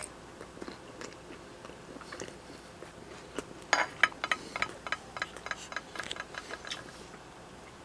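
A person chewing a bite of sausage. About halfway through there is a run of irregular wet clicks and smacks, several a second, that dies away near the end.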